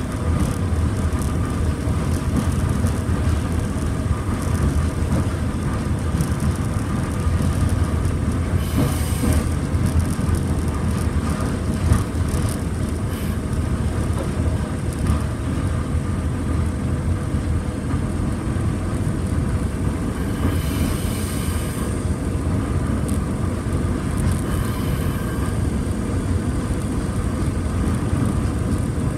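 Running noise of the RETRAM, a vintage ex-Stuttgart GT4 articulated tram, heard from its cab as it rolls slowly along street track: a steady low rumble of motors and wheels on the rails. There is a short hiss about a third of the way through, a longer one a little past the middle, and a single click in between.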